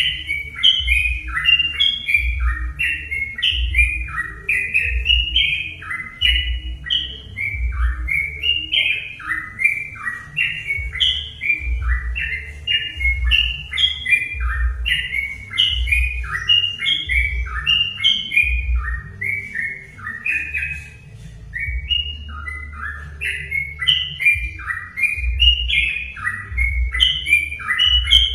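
Yellow-vented bulbuls (trucukan) singing without pause: fast, bubbly, chattering phrases of overlapping notes repeated over and over. A low, irregular thudding runs underneath.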